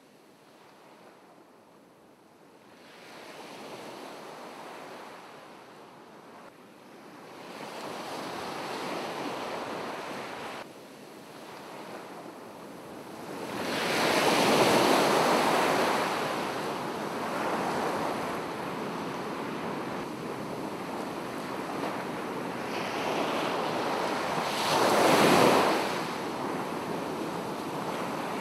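Ocean surf: waves breaking and washing in, swelling and fading over several seconds at a time, with the loudest breaks about halfway through and again near the end.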